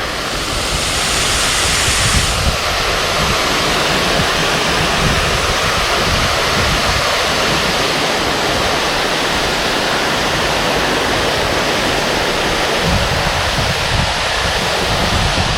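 Small creek waterfall rushing steadily, a loud even wash of falling water, the creek running at a moderate flow rather than its usual heavy pour.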